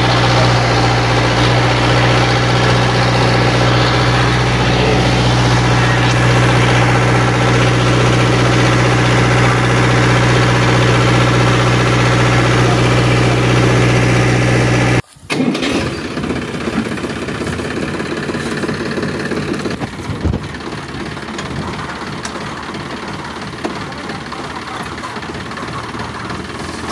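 Motor-vehicle engine idling with a steady, even drone. About halfway through it cuts off abruptly, and a quieter, rougher engine running sound follows, with a few knocks.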